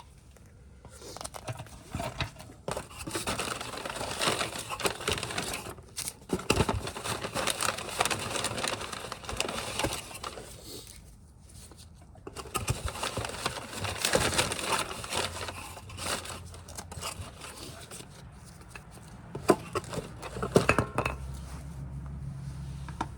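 Brake pad packaging crinkling and tearing as it is opened and handled, in two long stretches. A few sharp clinks of metal parts come near the end.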